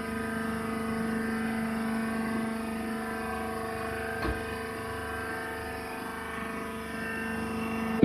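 Hydraulic baler press's power unit (electric motor and hydraulic pump) running with a steady, even hum of several pitches, with a single light knock about four seconds in.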